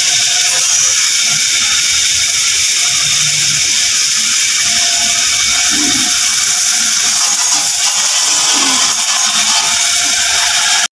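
High-pressure water jet from a hose nozzle spraying down a steel hog scale and its cage: a steady, loud hiss of spray.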